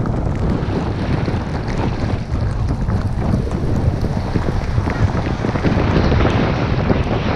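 Wind buffeting the microphone of a camera carried by a skier going downhill: a heavy, rumbling rush that grows a little louder in the second half, mixed with the hiss of skis sliding on snow.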